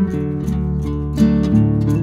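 Background music: strummed and plucked guitar chords with a steady beat.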